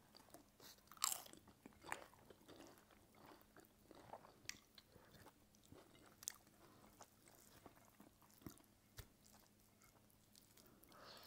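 Quiet eating: chewing with sharp, scattered crunches of crisp papad, the loudest about a second in.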